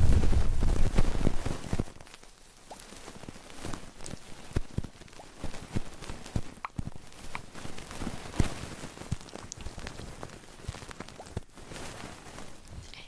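Close-miked ASMR trigger sounds: a loud, low rustling rumble for about the first two seconds, then soft, irregular clicks and crackles.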